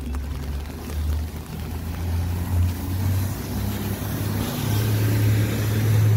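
A city bus's diesel engine running close by, a steady low hum that rises a little in pitch about halfway through as it pulls along. A hiss of wet road runs under it.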